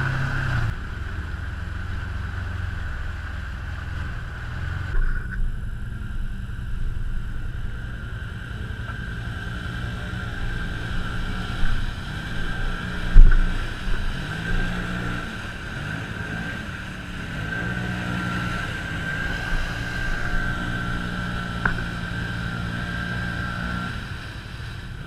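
Side-by-side utility vehicle engines running, revs rising and falling as a machine churns through deep mud. A single loud knock about 13 seconds in.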